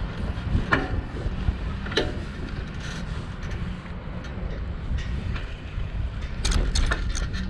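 Wind buffeting the microphone while riding a bicycle, with the tyres running on the pavement and a few short rattles or clicks from the bike.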